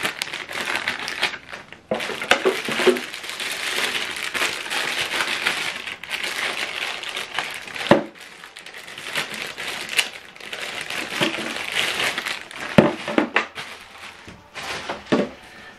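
Clear plastic packaging bags crinkling and rustling as cables and a power adapter are pulled out of them, with a few sharp knocks as parts are set down.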